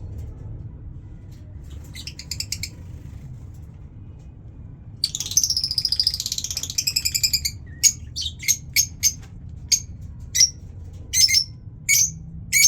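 Pet lovebirds calling: a short burst of chatter, then a rapid run of shrill chattering lasting a couple of seconds, followed by a string of single sharp chirps about every half second. A steady low hum runs underneath.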